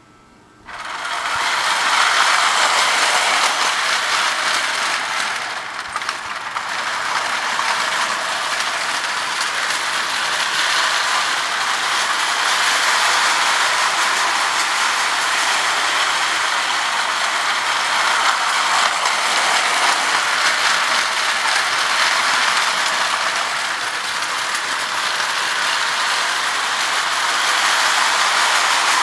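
Marx 897 lithographed tinplate toy train running on its track: a steady mechanical running noise of gears and wheels that starts about a second in, with a brief dip about five seconds in.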